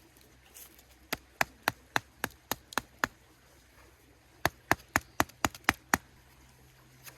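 Two quick runs of sharp, dry knocks, about eight strokes each at four to five a second, with a pause of about a second and a half between them.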